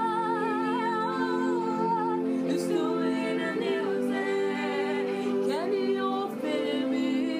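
Slow worship music: a woman's voice sings long notes with a wavering vibrato and slides over held, steady chords.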